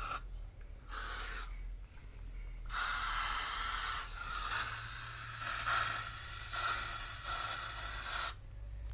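Aerosol insecticide can spraying: a short burst about a second in, then one long spray of about five and a half seconds that stops shortly before the end, a steady hiss with a faint whistle in it.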